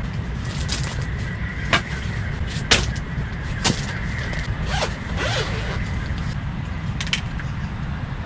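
Folding camp chair being set up and sat in: fabric rustling and a few sharp clicks and knocks from the frame, over a steady low rumble.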